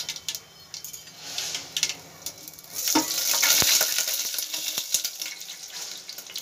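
Whole spices, dried red chillies and bay leaves sizzling and crackling in hot oil in a steel pot: the tempering (tadka) for dal. The hiss swells much louder and denser about three seconds in.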